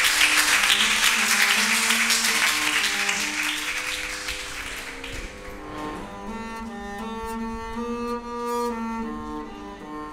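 Audience applause, loud at first and dying away by about five seconds in, over instrumental music of held notes. The music carries on alone afterwards as a clearer melody.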